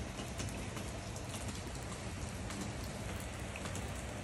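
Steady rain falling on a wet concrete driveway, with scattered close drops ticking through it.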